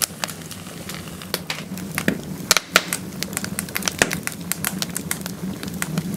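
Fire crackling: irregular sharp pops and snaps of varying loudness over a steady low rumble.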